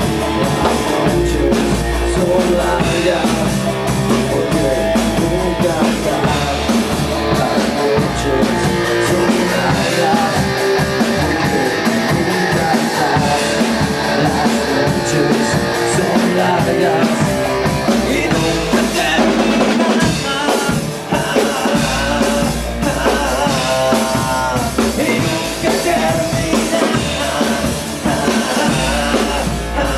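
Rock music: a full band with drum kit and electric guitar playing on without a break, a singing voice now and then.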